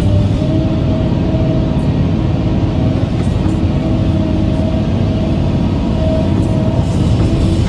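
A vehicle engine running steadily, a continuous low rumble, with faint music underneath.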